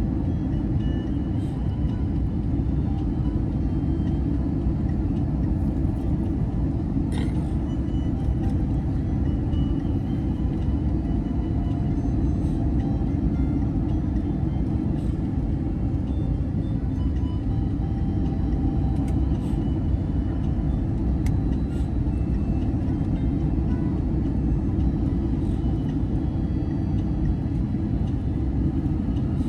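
Steady low rumble of cabin noise inside an Airbus A321neo, from the engines and the airflow.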